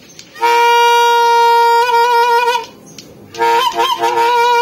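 Homemade bottle trumpet (a used plastic bottle with a tied-on membrane, blown through a pen tube) sounding two long, horn-like blasts that imitate a bus horn, about a second apart. The pitch wobbles near the end of the first blast and the start of the second.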